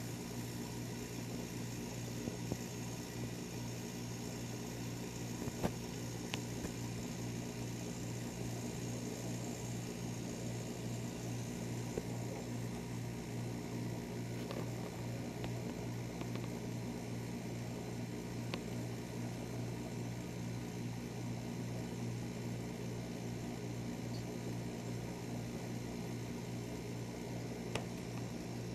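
Steady low hum of room tone, with a few faint clicks here and there.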